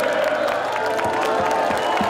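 Music playing over a large crowd of fans cheering, with scattered clapping.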